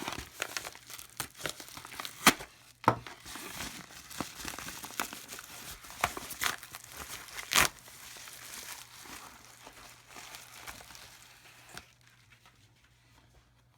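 Plastic retail packaging being cut and pulled open: crinkling and crackling with several sharp snaps, dying away over the last couple of seconds.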